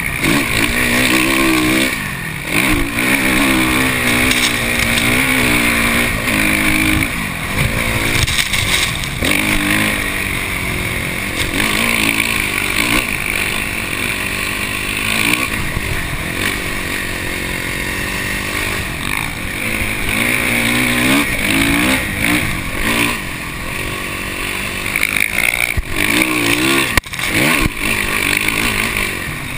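Dirt bike engine heard from on board while riding through sand dunes, revving hard, its pitch climbing and falling again and again with throttle and gear changes, with a few short drops in the engine note.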